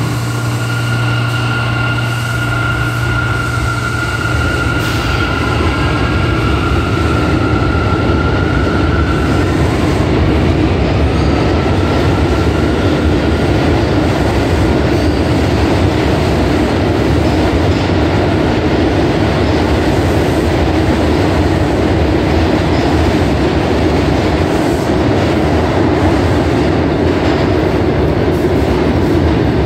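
Two R179 subway trains pulling out of a station together and speeding up. A whine of a few steady tones sounds over the first several seconds, over a loud rumble of wheels on rail that grows and then holds.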